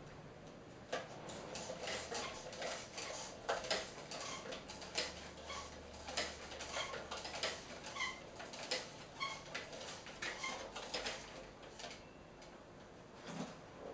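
Myon humanoid robot's leg joints and actuators clicking irregularly, a few times a second, with short whirring chirps as it steps.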